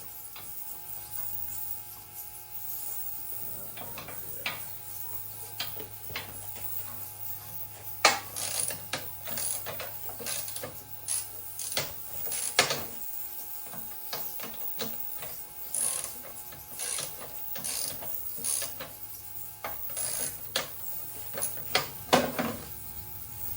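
Hand ratchet wrench clicking in short, irregular runs, with a few sharper metal knocks among them. A low steady hum underneath stops about halfway through.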